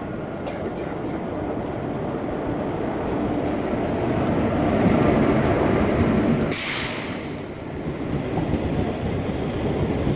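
Passenger train running on the rails: a steady rumble of wheels and carriage that swells in the middle, with a brief hiss about six and a half seconds in.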